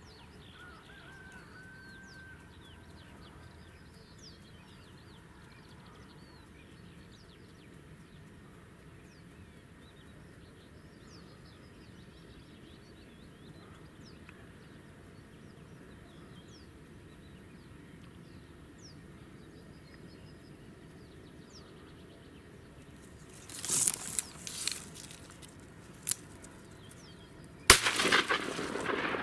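Quiet marsh background with small birds chirping faintly. About 24 seconds in come a few loud sudden bursts, and near the end a single sharp shotgun shot, followed by a noisy tail.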